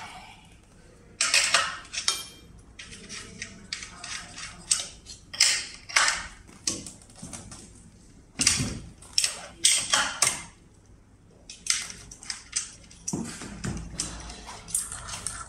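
Metal wrench clinking and rattling on the axle nuts of an electric scooter's rear hub motor as they are loosened: a run of short, irregular metallic clicks and clatters with brief pauses.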